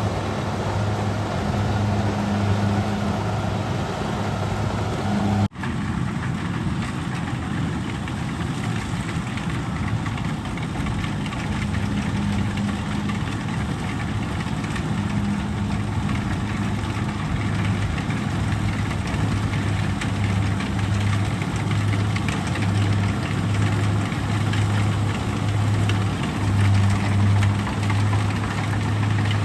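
Kubota DC-70G combine harvester's diesel engine running steadily with a low, even hum, broken by a brief cut about five seconds in.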